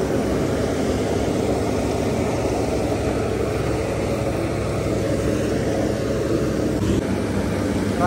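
Tractor engine working under load, driving a PTO straw reaper that chops wheat straw and blows it into a trailer: a steady, unbroken mechanical drone of engine and machine.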